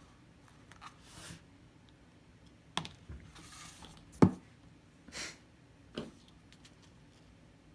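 Slime being handled by hand: scattered sticky clicks and pops with short soft rustling stretches, and one sharp snap about four seconds in that is the loudest.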